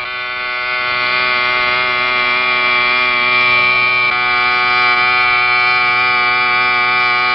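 A loud warning signal sounding one steady, buzzy tone, growing a little louder over the first second and then holding level.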